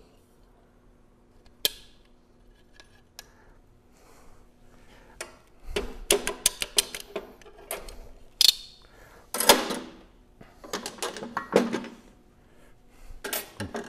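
Snap ring being worked out of a screw compressor's shaft seal bore with snap ring pliers: a single sharp metal click a little under two seconds in, then, from about halfway, a busy run of metal clinks and clatters as steel hand tools are handled and set on the bench.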